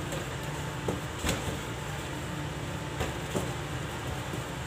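Steady low background hum, with a few soft knocks as hands press and shape a lump of bread dough on a stainless steel worktable, the clearest a little over a second in.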